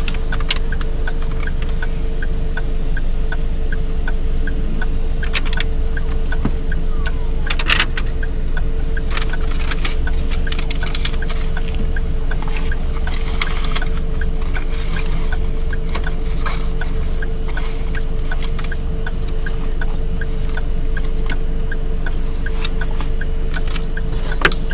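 Ford Focus 2 engine idling, heard from inside the cabin as a steady low hum. A light, even ticking runs at about two ticks a second, with a few brief knocks.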